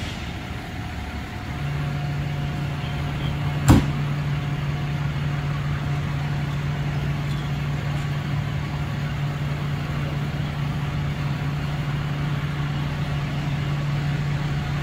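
A motor vehicle engine idling, a steady low hum that comes in about a second and a half in. A single sharp knock lands a couple of seconds later and is the loudest sound.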